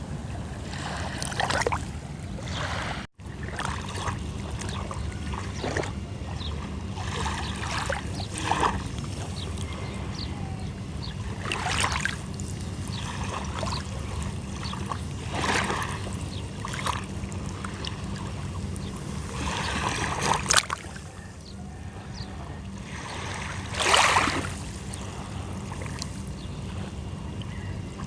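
Sea waves washing onto a shore, with a splash of surf every few seconds over a steady low rumble. The sound cuts out for an instant about three seconds in.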